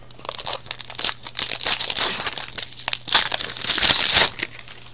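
Foil wrapper of a 2018-19 Upper Deck Artifacts hockey card pack being torn open and crumpled by hand: dense crinkling that is loudest about two seconds in and again near the end.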